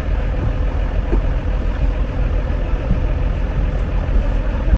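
Steady low rumble of a motor vehicle running, with a faint steady whine over it. It stops suddenly at the end.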